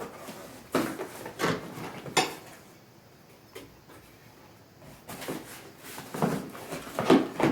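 Parts and packaging of a garage door opener being handled and set down: two bouts of knocks, clatter and rustling, the first about a second in and the second from about five seconds in.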